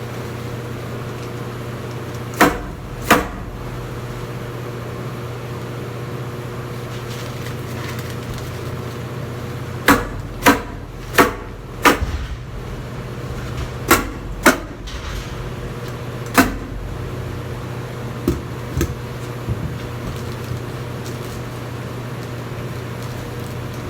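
About ten sharp knocks, coming in small groups, over a steady machine hum: construction tool strikes during insulation work.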